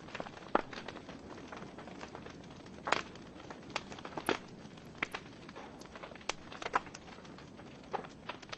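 Wood fire burning in a fireplace: a low hiss of flames with irregular sharp crackles and pops from the burning logs, a few louder snaps among them.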